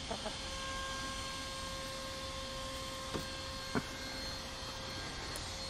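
A steady low hum with a few faint clicks, one just after the start and two more a little past the middle.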